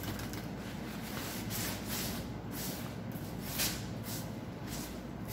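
A wipe rubbed back and forth along a forearm, swishing about twice a second, to clean the skin before tattooing. A steady low hum runs underneath.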